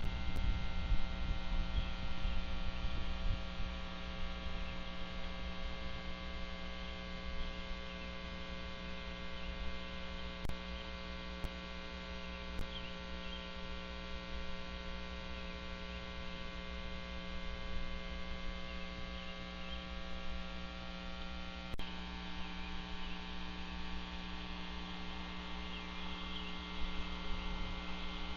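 Steady electrical mains hum with many overtones on a nest camera's audio feed, over a low rumbling noise, with a few brief clicks.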